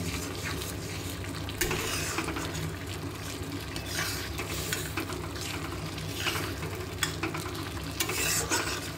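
Metal spatula stirring and scraping thick boiled red lentils (masoor dal) in an iron wok, in irregular strokes, over a soft steady sizzle from the hot tempering oil.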